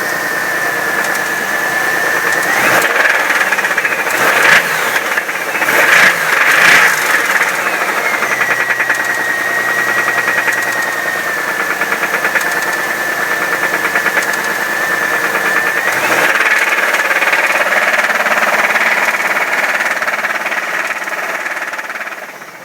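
1997 Chevrolet Camaro's 3800 V6 running with a heavy, rapid knock: a bad motor. It is revved in short blips from about three to seven seconds in, then brought up and held at higher revs from about sixteen seconds in before fading near the end, with a steady high whine over the engine at the lower revs.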